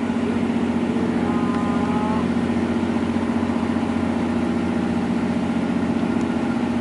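The fishing vessel Northwestern's diesel engine running steadily, heard close up from the lock wall: a low, even drone with a fast pulse.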